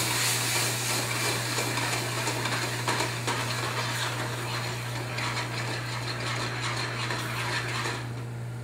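Butter melting into a white wine and blueberry pan sauce, sizzling as the sauté pan is shaken and swirled on an electric coil burner, with small clatters of the pan against the coil. The sizzle drops away near the end, over a steady low hum.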